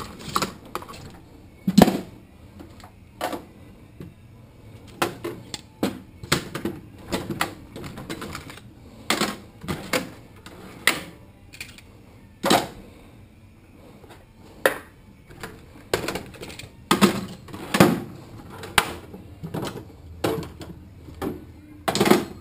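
Metal hand tools clinking and clattering in a toolbox drawer as they are picked up and dropped out of place: irregular clicks and knocks, a few of them louder.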